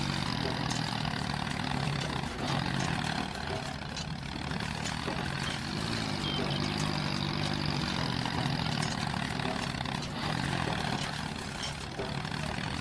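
Tractor engine running steadily at a low pitch, rising and falling slightly now and then.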